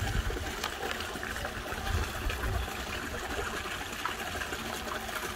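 Steady trickle of water running into a garden koi pond, with brief low rumbles on the microphone at the start and about two seconds in.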